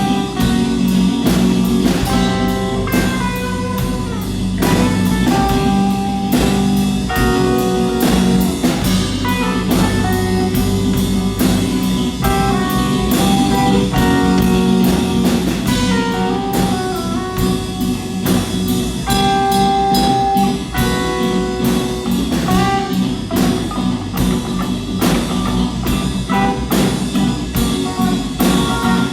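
A band playing a song on guitar and drum kit, with steady drum hits under changing guitar notes.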